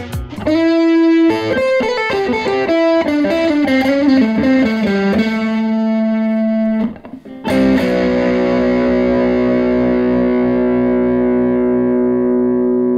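Electric guitar played through an amplifier with distortion: a descending single-note lead line and a held note, then after a brief break a long sustained note ringing out for about five seconds.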